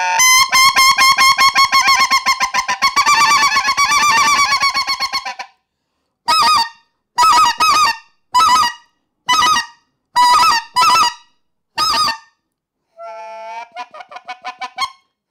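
Hand-made GOMAN MiniMonster goose call of Delrin, blown by mouth with the hand cupped around it to shape the tone, imitating geese. It starts with a fast run of notes for about five seconds, then a string of separate short two-note honks, and near the end a softer, quieter run of fast notes.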